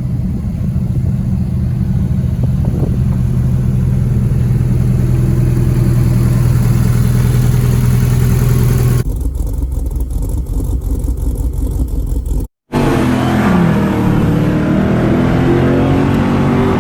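A car engine running steadily. About nine seconds in the sound changes, drops out for a moment just after twelve seconds, and comes back with its pitch sliding up and down.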